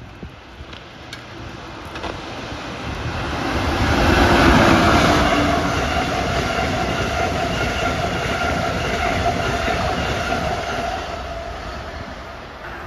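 Amtrak electric passenger train passing at speed. The rumble and wheel clatter build as it approaches, peak about four seconds in and hold while the coaches go by, with a steady whine over the noise, then fade near the end.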